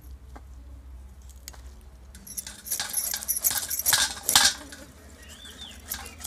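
Knife blade scraping the scales off a rohu fish, a rapid run of rasping strokes from about two and a half to four and a half seconds in.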